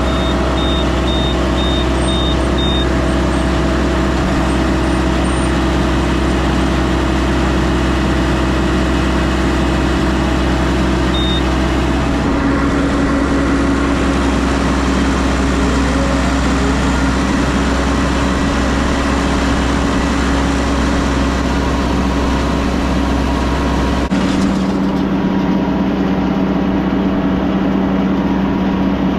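A machine engine running steadily, with a run of about six short high beeps in the first three seconds. The engine note shifts about 12 seconds in and again about 24 seconds in.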